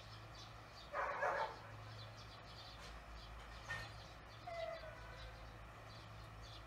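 A dog barks once in the distance about a second in. A short call with a falling pitch follows a little after the middle, over faint, evenly repeating high ticks and a low steady hum.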